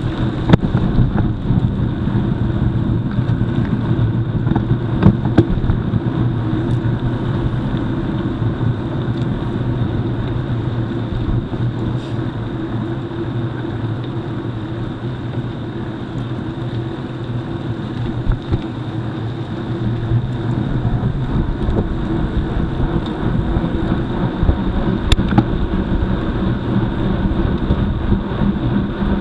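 Mountain bike riding over a gravel road: a steady tyre and wind rumble with scattered sharp clicks and rattles, slightly quieter for a few seconds in the middle.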